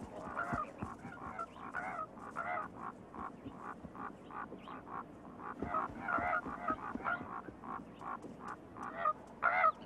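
Ravens calling: a rapid run of short croaks, two or three a second, with a louder pair near the end.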